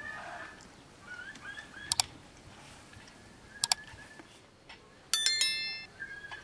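Bright bell-like notification chime from a subscribe-button animation, ringing out suddenly about five seconds in and fading within a second, after two sharp double clicks like a mouse button. Small birds chirp faintly in the background.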